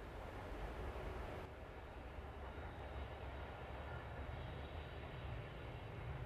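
JR Freight EF210 electric locomotives hauling a container freight train, heard from a distance: a low, steady rumble of wheels on rail that slowly grows louder as the train approaches.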